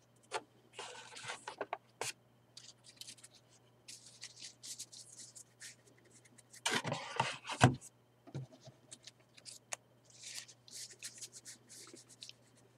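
Baseball trading cards being handled and sorted: intermittent rustling and scraping as cards slide against each other and across a wooden tabletop. About halfway through comes a louder burst of shuffling with a few sharp knocks as the stack is gathered up.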